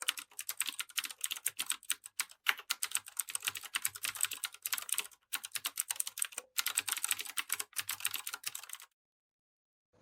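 Rapid typing on a computer keyboard: dense runs of key clicks with two brief pauses, stopping abruptly about nine seconds in.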